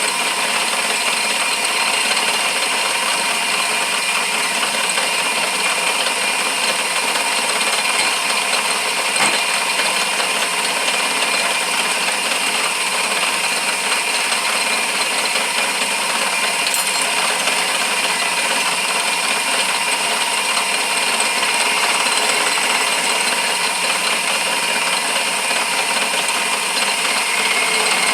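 Wood lathe running steadily while a newly handled turning chisel cuts a walnut blank, with a single click about nine seconds in.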